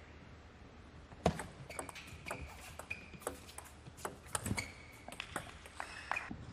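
Table tennis rally: the ball clicking off the rackets and the table in quick succession, starting about a second in, with short squeaks of shoe soles on the court floor. The clicks stop about six seconds in as the point ends.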